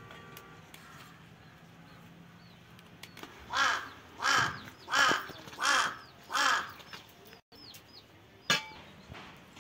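A crow cawing five times in an even series, about one caw every 0.7 s, followed a couple of seconds later by one sharp click.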